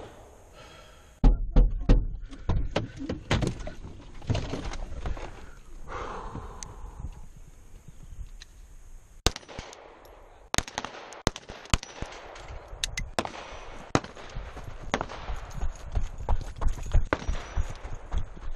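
Pistol shots fired during a vehicle drill: a string of sharp reports spread through the second half. Before them come thumps and rustling of movement in and around the car.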